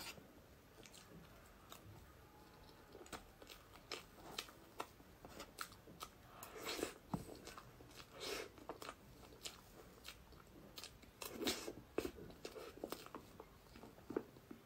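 Close-miked eating sounds: a person biting and chewing mouthfuls of soft cream-frosted sponge cake, quiet and wet, with scattered small clicks and a few louder bites.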